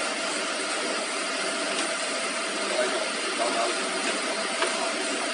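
Steady mechanical running noise of a motor-driven machine, even and unbroken, with a faint steady hum-like tone under it.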